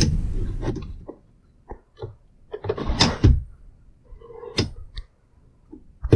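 A scattered run of light knocks and clicks from things being handled, with a short scraping rush about three seconds in and a sharper knock near the end.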